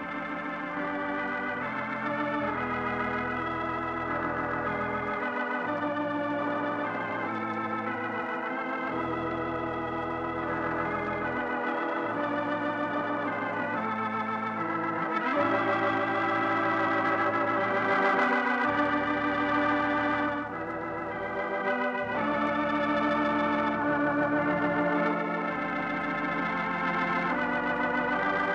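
Organ playing the closing theme music of a 1950 radio program: sustained chords over held bass notes that change every two or three seconds, growing a little fuller about halfway through.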